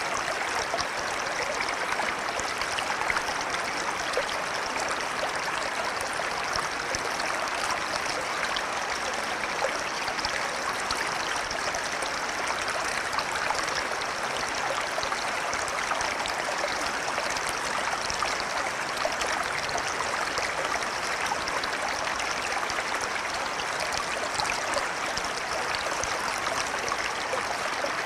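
Flowing river: a steady, unbroken rush of running water.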